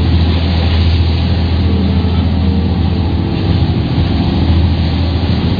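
A boat's engine droning steadily at sea, under a loud hiss of wind and rushing water.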